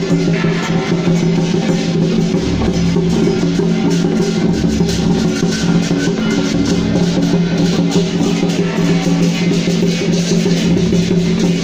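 Lion-dance percussion: a big drum beaten continuously with cymbals clashing, over a steady held tone.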